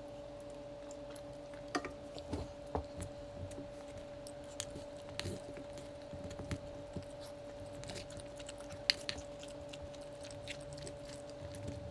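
A person chewing and eating close to the microphone: scattered wet smacks and small clicks at an irregular pace. A faint steady hum runs underneath.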